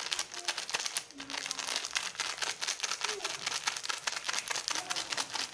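Small plastic seasoning sachets from instant pancit canton being crinkled and squeezed open by hand: a dense, continuous crackling of thin packet film.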